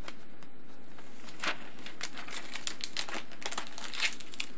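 Paper adhesive labels being peeled off their backing liner by hand: irregular crinkling and crackling of the label paper, busiest from about a second and a half in.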